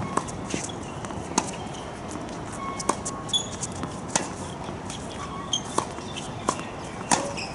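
Tennis balls being struck by rackets and bouncing on a hard court during a warm-up rally: a dozen or so sharp pops at irregular spacing.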